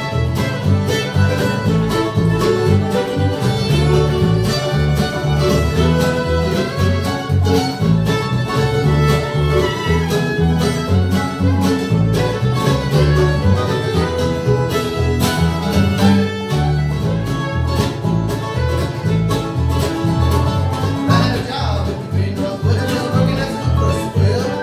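Live bluegrass band playing: fiddle, mandolin, acoustic guitars and upright bass, with a steady rhythm of plucked bass notes.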